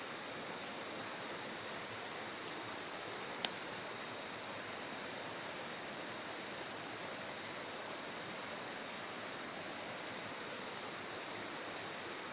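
Steady rushing of a river, with a thin steady high tone above it and one sharp crackle from the wood fire about three and a half seconds in.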